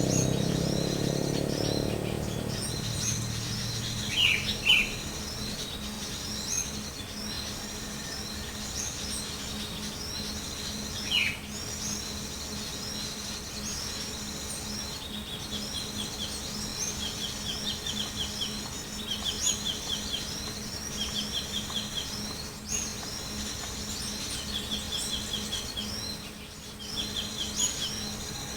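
Small birds chirping and calling, with a few louder falling notes early on and, from about halfway, short trills repeated every second or so. A faint steady low hum runs underneath.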